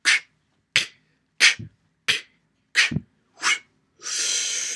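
Beatboxing: sharp mouth-percussion hits about every 0.7 seconds, two of them with a deeper kick-like thump. It ends in a long hissing 'tss' lasting most of the last second.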